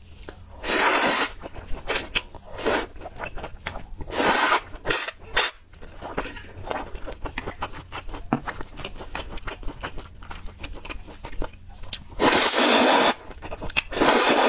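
Close-miked eating of a noodle soup. There are several loud slurps of noodles, with wet chewing and small mouth clicks between them. A long slurp comes about twelve seconds in and another near the end.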